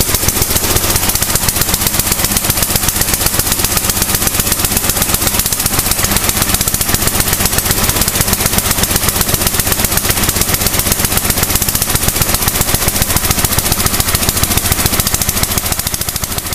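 Toro snowblower's small single-cylinder engine running steadily, its rapid even firing pulses loud and close, easing off a little near the end.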